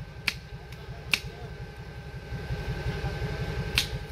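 Offroad 4x4's engine idling with a low, even pulse, with three sharp clicks or snaps over it.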